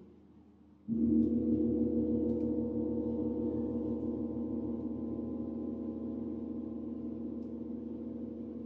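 A large suspended gong struck once about a second in, then ringing on with a sustained shimmer of tones that slowly fades.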